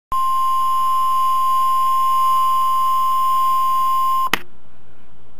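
NOAA Weather Radio warning alarm tone: a single steady tone near 1 kHz held for about four seconds, cut off with a click, then faint radio hiss.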